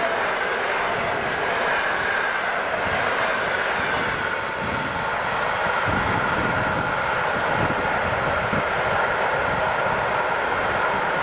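ED4M electric multiple unit running away at speed: wheel-on-rail noise with a steady high whine that sinks slightly in pitch over the first few seconds. A few low thumps come around the middle.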